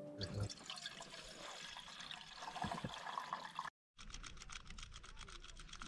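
Water poured from a collapsible plastic water carrier into a small metal camping kettle, faint. After a short break about 4 seconds in, faint rapid ticking.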